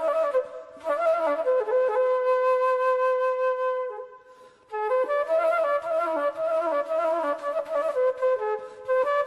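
Flute playing an ornamented melody in traditional music. It holds one long note, breaks off briefly about four seconds in, then picks the tune up again.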